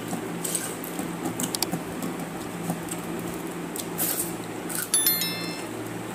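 Eating at close range: fingers squishing and mixing wet rice in steel bowls, with small wet clicks of chewing, over a steady low hum. About five seconds in, a short, bright electronic chime.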